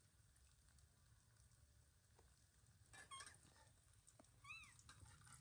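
Faint, short squeaky calls from a baby monkey: a quick cluster of squeaks about three seconds in, then one short rising-and-falling squeak near the end.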